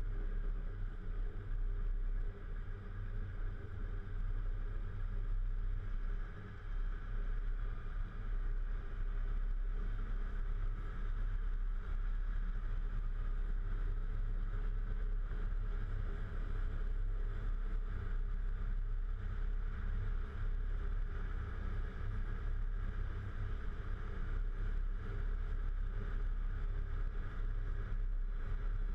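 Volvo FH 440 truck's six-cylinder diesel engine running under way, a steady low drone.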